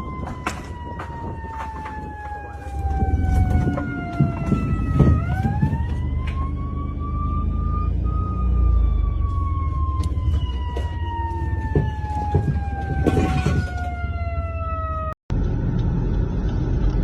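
A siren wailing slowly: its pitch falls over several seconds, climbs again about five seconds in, then sinks slowly once more, over a low rumbling background. Near the end it breaks off abruptly and a steady rushing noise takes over.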